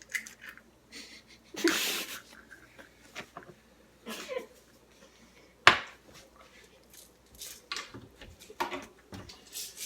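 A person's short breathy nasal bursts, like stifled laughter, amid small clicks. There is a sharp clack a little over halfway through, the loudest sound.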